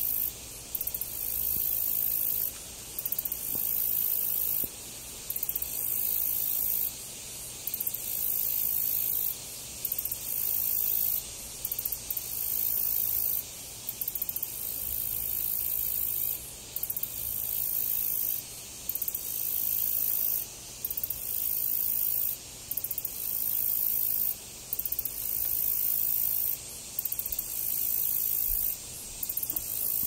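High-pitched insect chorus: a continuous shrill buzz broken by short gaps every second or two.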